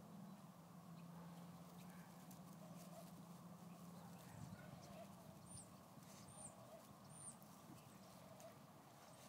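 Very faint outdoor sound of a dog licking and mouthing at a cracked egg in the grass, heard as scattered soft clicks. A low steady hum runs underneath, and three short high chirps come about halfway through.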